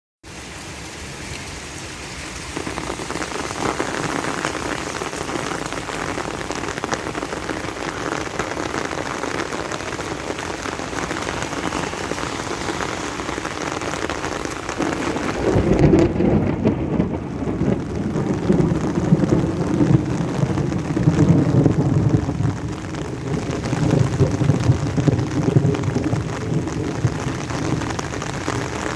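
Steady heavy rain falling, a dense hiss. About halfway through the sound changes: the hiss thins and a fuller, lower rush of rain takes over.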